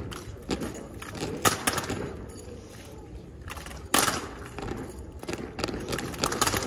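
A drill team's rifles clacking and slapping as cadets handle them in unison, with scattered sharp knocks and one louder clack about four seconds in as the squad drops to a kneel.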